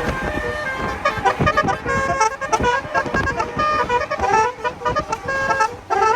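Basuri telolet horns on convoy cars playing a tune in quick stepped notes, several horns overlapping, over a low rumble of wind and road noise.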